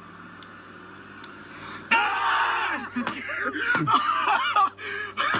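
Quiet for about two seconds, then a sudden loud burst of noise, followed by a man laughing in short repeated bursts.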